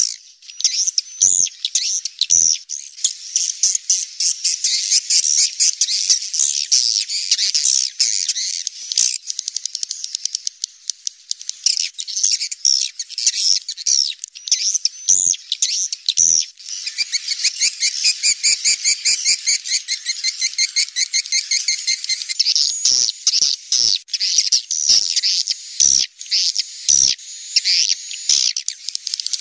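Swiftlets calling: a dense chorus of high, rapid twittering chirps, with an even, buzzy trill that runs for several seconds in the middle.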